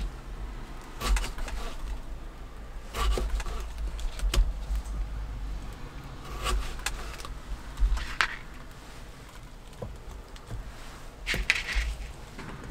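Kitchen knife slicing tomatoes on a wooden cutting board: short, irregular cuts and knocks of the blade against the board, a couple of seconds apart, over a steady low rumble.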